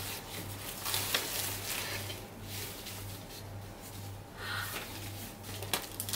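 Clear plastic wrapping and bagged items rustling and crinkling as a parcel is unpacked by hand, with scattered sharp crackles and clicks.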